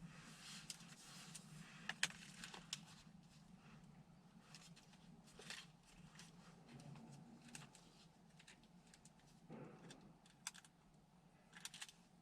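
Near silence: faint room tone with a steady low hum and scattered small clicks and ticks.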